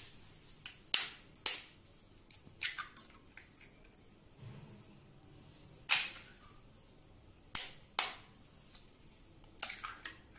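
Raw eggs being cracked on the rim of a bowl: a run of sharp, separate cracks a second or more apart, some in quick pairs, as each shell breaks.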